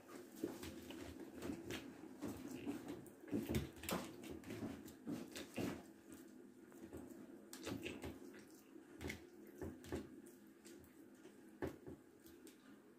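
Metal ladle pressing soft fresh-cheese curd into a perforated plastic cheese mould, giving irregular soft clicks and knocks against the mould. The pressing firms the curd and squeezes out the whey.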